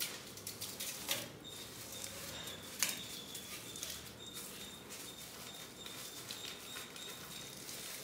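Plastic milk pouch crinkling and rustling as chunks of frozen milk are squeezed out into a stainless-steel mixer jar, with a couple of sharper taps about one and three seconds in.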